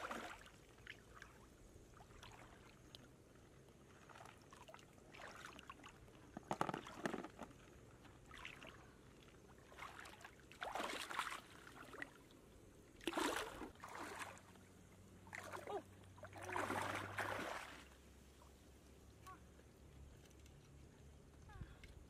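Shallow pond water splashing and sloshing in short bursts, about six times, as someone wades and scoops in it with her hands. A faint steady low hum runs underneath.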